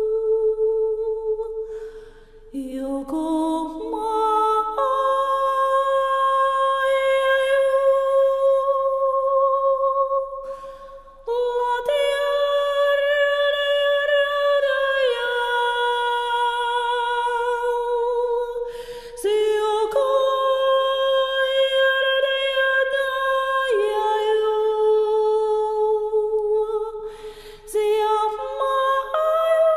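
A woman singing long, held wordless tones a cappella in a high voice, stepping to a new pitch every few seconds. Short breaks for breath come about every eight seconds.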